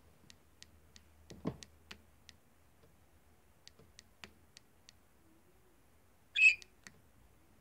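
Budgerigar striking its beak against a cage mirror: two runs of light, sharp clicks about three a second, the first with one duller knock among them. One short, louder high-pitched sound comes near the end.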